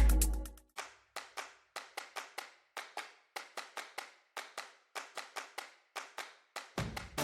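Background electronic music stops and a sparse percussion break follows: short, sharp clap-like clicks at a fairly even pace, nearly four a second. The full track comes back in near the end.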